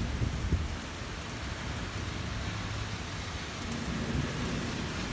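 Steady rain falling during a thunderstorm, with a low rumble of thunder dying away within about the first second.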